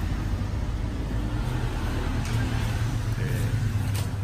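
Steady low rumble of workshop background noise, with a single faint click shortly before the end.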